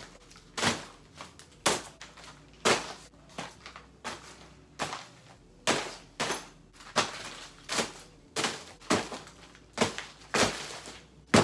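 Padded mailers and small parcels tossed one after another onto a bed, each landing with a short thud, about a dozen of them at roughly one a second.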